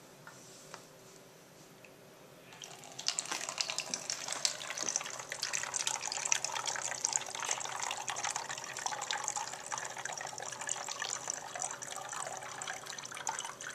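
Hydrogen peroxide poured from a measuring jug through a plastic funnel into an empty plastic bottle, splashing as the bottle fills. The pour starts about two and a half seconds in and keeps going.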